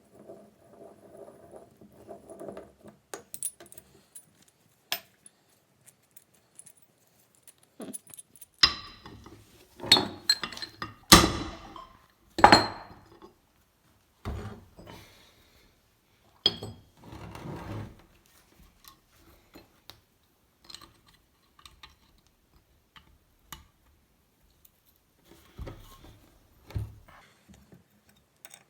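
Metal parts and tools of a rusty bench vise being handled: scattered clinks and small knocks, with a cluster of louder ringing metal clanks about a third of the way in.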